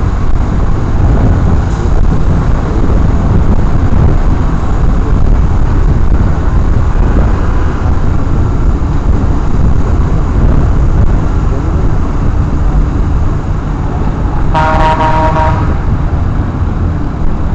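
Steady wind and road noise at a motorcycle helmet camera while riding in traffic, with a vehicle horn sounding once for about a second near the end.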